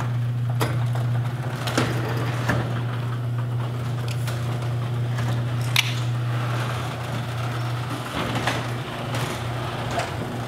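Electric garage door opener running with a steady low hum as a sectional garage door rolls up, with scattered clicks and rattles from the door panels and rollers.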